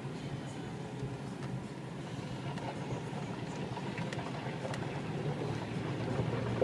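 Car interior noise while driving through standing floodwater: a steady low drone of engine and road, with the wash of water under the tyres. A couple of light ticks come about four seconds in.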